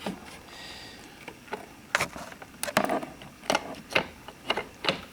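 Hand tools and a jumper-wire clip clicking and knocking against a car battery terminal while a connection is being made, about eight sharp clicks at uneven intervals, most of them in the second half.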